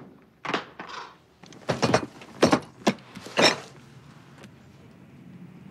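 A handful of short mechanical clicks and knocks over the first few seconds, the sharpest a single click about three seconds in, then a low steady background.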